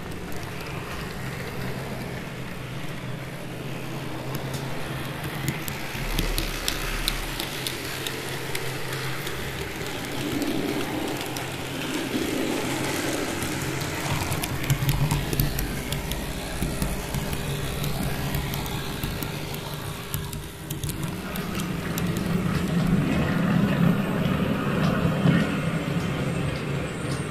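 TT-scale (1:120) model trains running on the layout: the hum of their small electric motors with a steady run of wheel clicks on the track, a little louder near the end.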